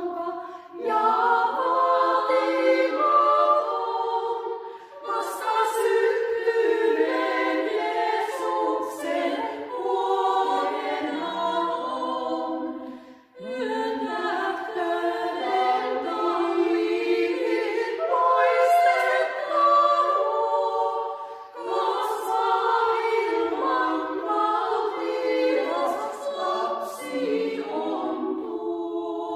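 Small women's choir singing a cappella, in long phrases broken by brief pauses for breath.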